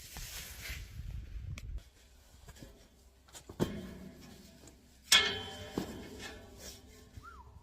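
Rustling and shuffling for the first couple of seconds, then a few sharp knocks with a short ringing after them, the loudest about five seconds in.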